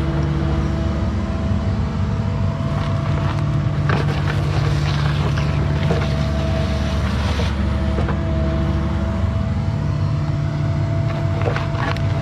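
Caterpillar 304 mini excavator's diesel engine running steadily while digging, with scattered sharp knocks and scrapes of the bucket in the ground.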